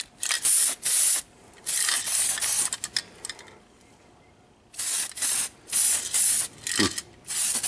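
DuraCoat aerosol can spraying gun coating in a series of short hissing bursts, each about half a second long, with a pause near the middle. The can's nozzle is acting up, leaking around where it pops on.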